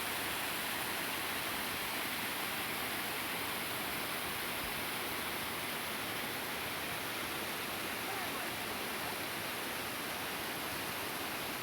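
Steady, even rushing of fast-flowing water.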